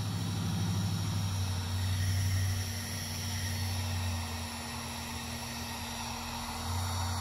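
Electric heat gun running, a steady blowing hiss with a low hum, heating a strip of recycled HDPE plastic to melt it into a kayak hull patch. The low hum dips about four seconds in and comes back near the end.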